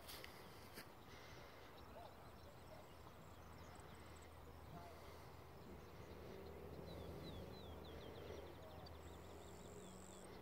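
Near silence in an open field: a faint low hum, with a small bird's quick trill of descending chirps about seven seconds in and a thin high insect-like tone near the end.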